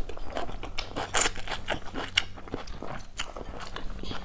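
Close-up mouth sounds of eating rice noodle soup with beef stew: wet chewing and noodle slurping, heard as a scatter of irregular small smacks and clicks.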